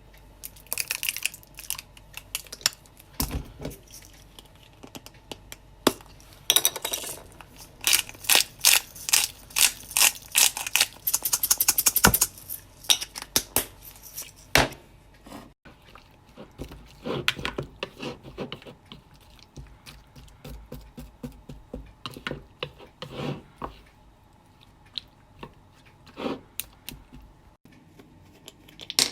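Close-miked ASMR handling of small hard objects: scattered clicks and taps, with a run of rapid clicks at about five a second in the first half, then sparser, softer taps.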